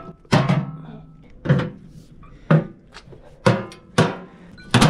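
Steel pry bar jabbed and levered at the door edge of a small steel keypad safe to force it open: sharp metallic clanks about once a second, each with a short low ring.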